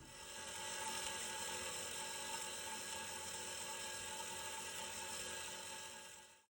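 Metal lathe running with a steady whine, as it machines a metal block held in a jig. It fades in over the first second and fades out near the end.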